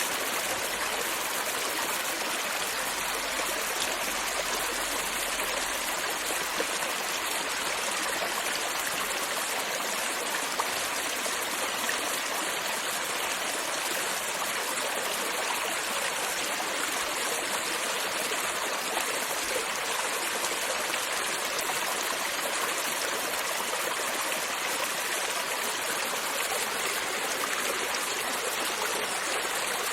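A creek flowing steadily, water running and trickling over stones.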